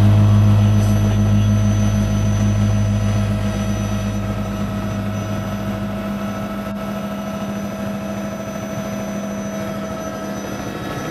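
Helicopter engine and rotor drone heard from inside the cabin: a steady hum with a strong deep tone that fades out about halfway through, and fainter high steady whines above it.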